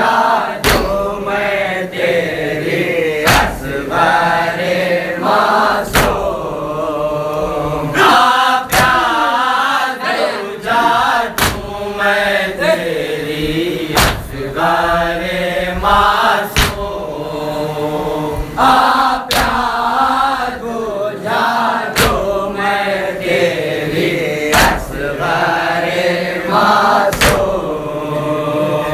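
A group of men chanting a Shia noha (Urdu mourning elegy) together in unison. A sharp slap comes about every two and a half seconds, sometimes doubled, as they beat their chests in time (matam).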